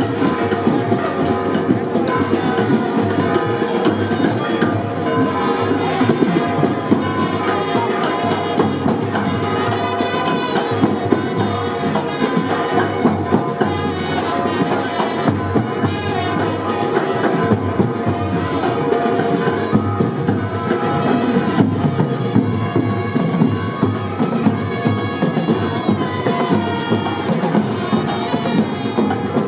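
Loud processional band music with brass instruments and drums playing continuously.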